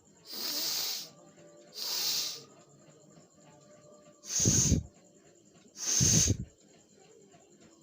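A person forcefully blowing their nose twice, each blow a loud noisy blast with a low fluttering rumble, about four and six seconds in. Before them come two shorter hissing breaths through the nose, about a second apart.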